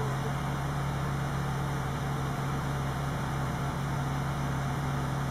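An engine running steadily: a constant low hum with a wider rushing noise over it, unchanging throughout.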